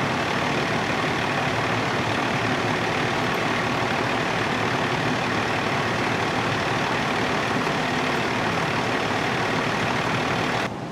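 Fire engine's diesel engine idling steadily, heard up close.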